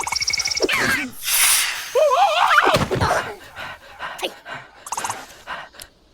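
Cartoon sound effects: a fast rattling buzz and a whoosh, then a cartoon larva's wordless, wavering cry about two seconds in, followed by a string of quick knocks and clicks.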